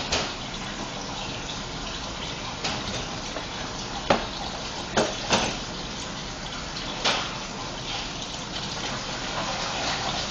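Hands pressing and smoothing rolled fondant over a box-shaped cake, with about half a dozen sharp pats and taps in the first seven seconds over a steady rushing background noise.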